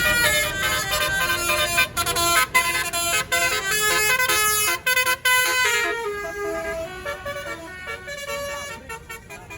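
Tour bus's basuri telolet horn, a multi-tone musical air horn, playing a melody of quick, changing notes. It is loud at first and grows fainter over the last few seconds.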